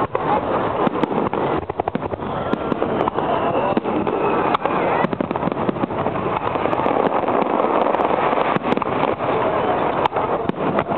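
Aerial fireworks shells bursting in quick succession: many sharp bangs and crackles close together, with no let-up.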